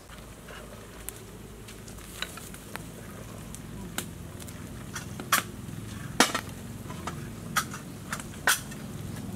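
Meat pieces and lemongrass simmering in a steaming clay pot, a steady bubbling sizzle, with a few sharp clicks over it.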